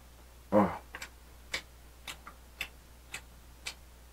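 Steady soft ticking, about two evenly spaced ticks a second, with a brief sound from a man's voice about half a second in.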